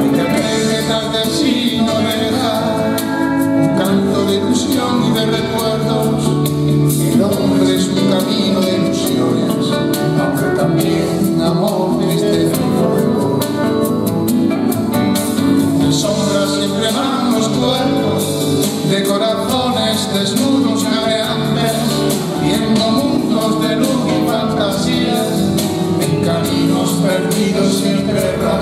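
A man singing a song over acoustic guitar accompaniment, with the music running without a break.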